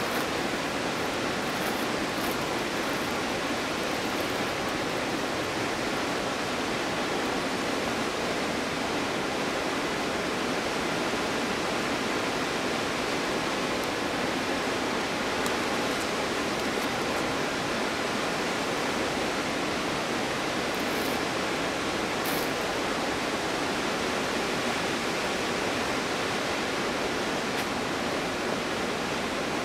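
Stuibenfall waterfall in winter: water falling in a steady, even rush with no change in level.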